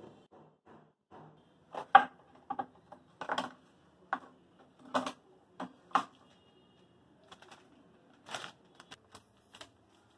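Kitchen items being handled: a series of short clinks and knocks from steel containers on a shelf, and the rustle of a plastic packet. The loudest knock comes about two seconds in.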